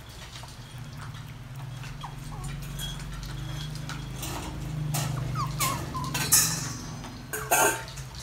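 Toy poodle puppies feeding together from a shallow plastic dish: scattered clicks and taps of eating and of paws on the plastic slatted floor, a few short squeaks a little past halfway, and two sharper clatters near the end, over a steady low hum.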